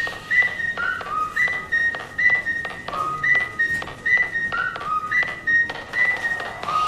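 Whistled tune, hopping back and forth between a higher and a lower note about twice a second, over a light clicking beat.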